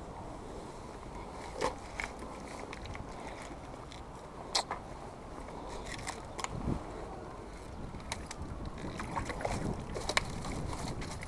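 Low, steady rumble of wind on the microphone and moving water at the water's edge, with a few short sharp clicks and taps from handling the fishing rod and reel.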